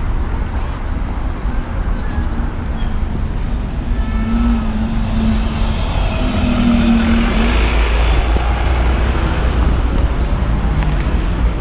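Busy street traffic at a junction, with a double-decker bus passing close by: its engine hum rises from about four seconds in and fades away after about seven and a half seconds.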